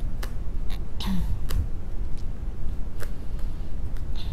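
Tarot cards being dealt and laid down on a cloth, a handful of separate soft clicks and taps of card on card and table, over a steady low rumble.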